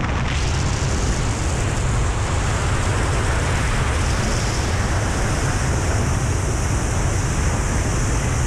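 Steady rushing noise with a heavy low rumble, like wind buffeting the microphone.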